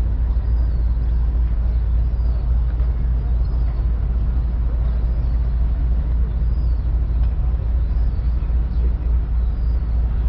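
Harbor ferry's engines droning, a steady low rumble heard on board.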